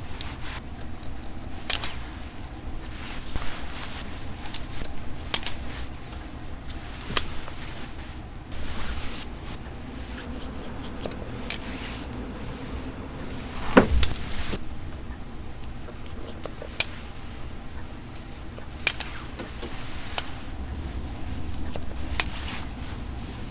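Hairdressing scissors snipping through hair: single crisp snips every couple of seconds, with soft handling noise between them.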